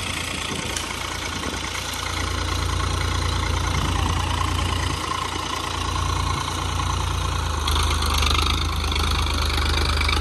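Farm tractor's diesel engine running steadily as it pulls a tillage implement through the field, growing louder about two seconds in and again near the end.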